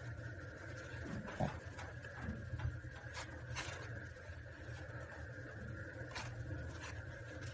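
Horsehair strands burning on a red-hot raku pot: scattered sharp crackles at irregular intervals over a steady low hum, with a dull knock about a second and a half in as the loudest sound.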